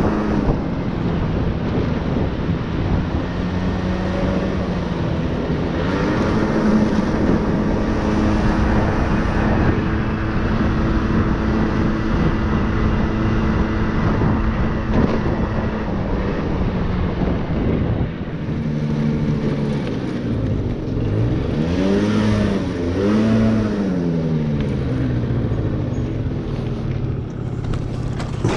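Motor scooter engine running steadily while riding. Near the end the throttle is opened and eased off twice, so the pitch rises and falls.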